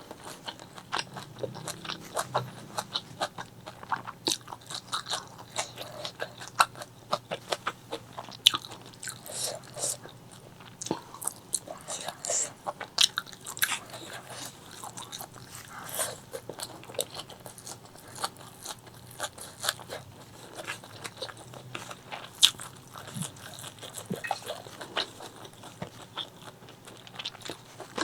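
Close-miked eating of spicy chicken liver, gizzard and white rice: continuous chewing and biting, with many sharp crunchy, wet clicks.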